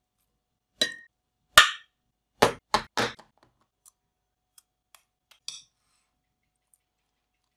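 Kitchen utensils knocking and clinking against a glass mixing bowl: five sharp clinks in the first three seconds, the loudest about a second and a half in, then a few faint ticks.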